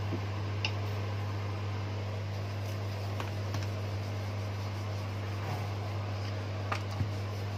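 A steady low mechanical hum with a light hiss, like a running fan, goes on without change. Over it come a few faint clicks and taps as paratha dough is rolled out with a wooden rolling pin on the counter.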